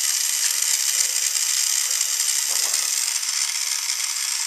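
Battery-powered Tomy toy train's small electric motor and plastic gears whirring steadily with a rattly buzz. A brief soft knock comes about halfway through.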